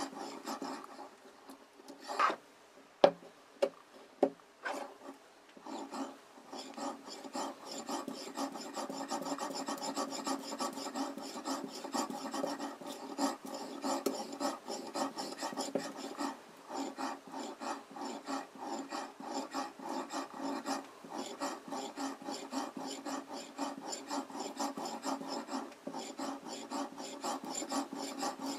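Fine-grit oil whetstone on a guided knife sharpener stroking back and forth along a steel kitchen-knife edge in quick, even scraping strokes. There are a few sharp clicks in the first five seconds, then steady continuous stroking.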